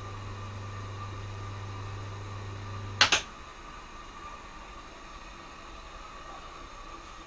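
Lathe's single-phase capacitor-start motor running in reverse with a steady low hum, then a switch clicks off about three seconds in and the hum stops.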